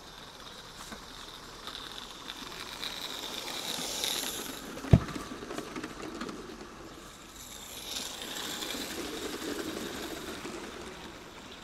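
Small live-steam garden railway train running on the track, its sound swelling to a peak about four seconds in and again between eight and ten seconds. A single sharp knock comes just before five seconds in.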